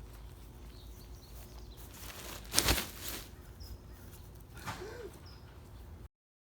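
Outdoor background with a few short, high bird chirps. A loud sudden rustle or clatter comes about two and a half seconds in, and a smaller knock near five seconds, before the sound cuts off abruptly near the end.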